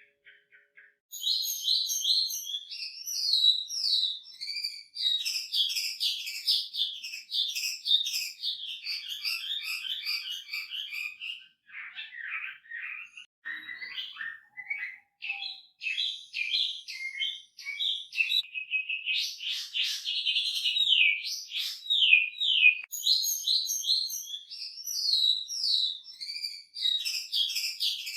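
Chinese hwamei (Garrulax canorus) singing non-stop after about a second of quiet: fast runs of rapid repeated notes and sweeping whistles. The song is varied and full of learned phrases ('isian'), and thins and drops lower for a moment about halfway through.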